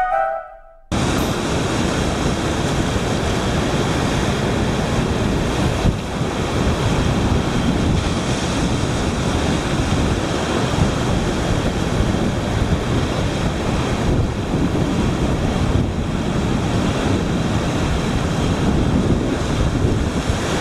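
Sea surf breaking and washing over a rocky shore, a continuous dense rush of water with wind buffeting the microphone. It cuts in abruptly about a second in.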